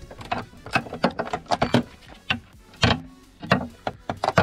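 Irregular clicks and knocks from a hand socket ratchet and metal tools working the nuts that hold a car door handle, mixed with camera handling noise.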